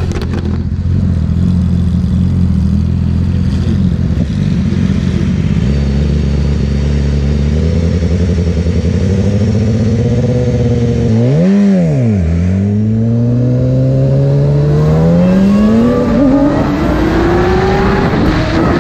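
BMW S1000RR sport bike's inline-four engine idling steadily, then revved once sharply up and back down about eleven seconds in, and pulling away with its pitch climbing steadily.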